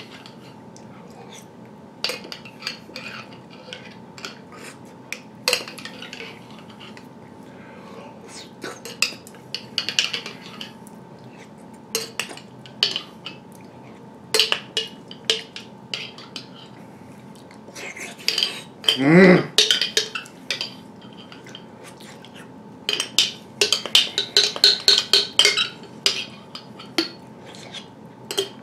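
Metal spoon clinking and scraping against the inside of a glass jelly jar in quick, irregular strokes as jelly is dug out and eaten. There is a short vocal sound from the eater about two-thirds of the way through, the loudest moment.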